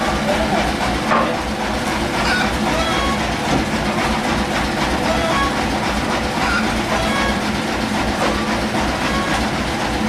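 Sawmill machinery running steadily without cutting, a continuous mechanical drone with an even low pulse underneath.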